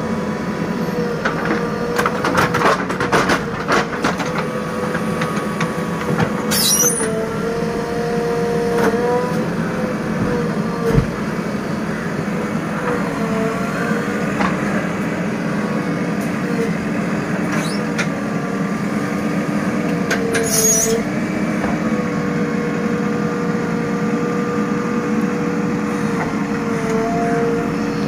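JCB 3DX backhoe loader's diesel engine running steadily under hydraulic load while the backhoe digs, its pitch dipping and shifting briefly as the load changes. The bucket clatters and knocks a few seconds in, with a thump near the middle and two short hisses.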